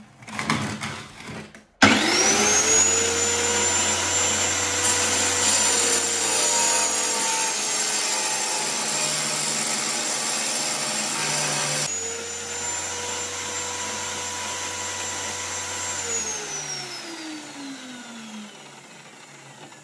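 Electric wet tile cutter with a diamond blade switched on about two seconds in, its motor spinning up and then running steadily while cutting marble tile. Near the end it is switched off and winds down with falling pitch.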